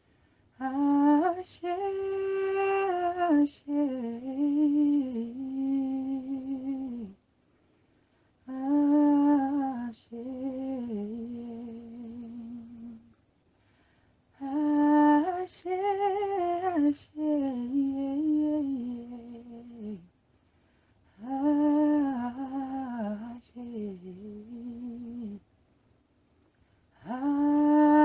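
A woman's voice singing slowly, a gentle wordless melody in long phrases of about five seconds each with short pauses between them.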